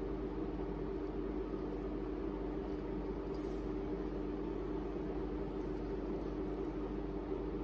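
Steady room hum and hiss with no change, as from a fan or the recording's background noise, and a few faint high ticks.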